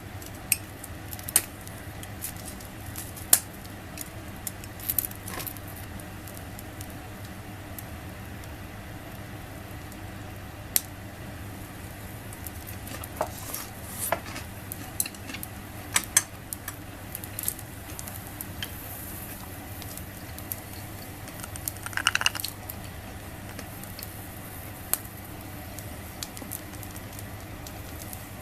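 Scattered clinks and taps of tableware, with a brief ringing clink about three-quarters of the way through, over a steady low background hum.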